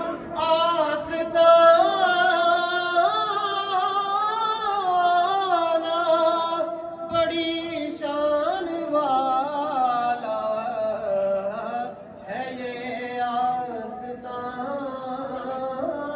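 Devotional chant sung in long, wavering held notes, with a brief break about three-quarters of the way through.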